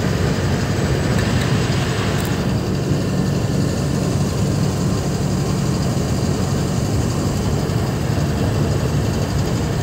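Truck engine and road noise droning steadily, heard from inside the cab while driving on the highway.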